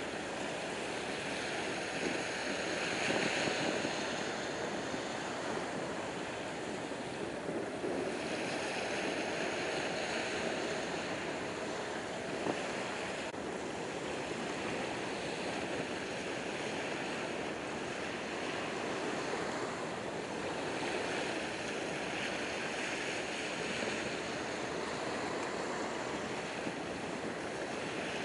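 Wind on the microphone and small waves washing on the shore: a steady noise that swells and eases every few seconds.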